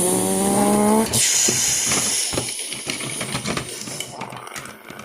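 Mouth-made toy car sound effects: a held, slightly rising voiced engine hum for about a second, then a long hiss that fades away with a few light ticks.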